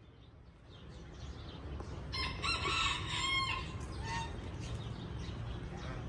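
A rooster crowing once, about two seconds in: a single call lasting about a second and a half. Small birds chirp faintly around it.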